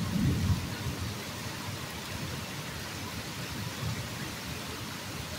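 Heavy rain pouring steadily on open ground and pavement, with a low rumble swelling in the first half second and again faintly near the end.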